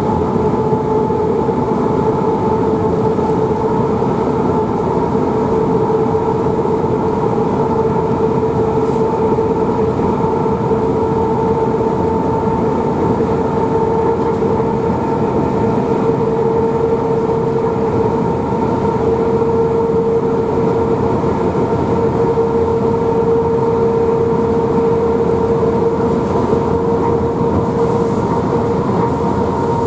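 Cab of a ČD class 121 electric locomotive running at steady speed: an even running noise of the locomotive and its wheels on the rails, with a steady whine that holds one pitch throughout.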